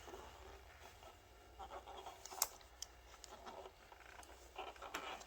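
Faint handling noises of fingers working at the 12-volt power connector inside a motorcycle fairing: soft rustling and scattered small clicks, with one sharper click about halfway through.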